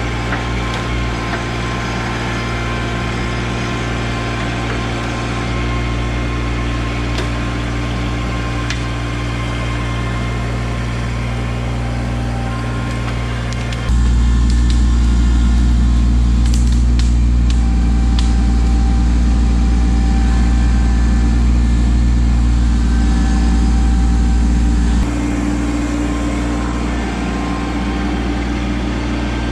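Kubota LX2610 compact tractor's three-cylinder diesel engine running steadily while it works the loader grapple. About halfway through, the sound turns to a louder, deeper rumble for roughly ten seconds, then returns to the earlier steady running.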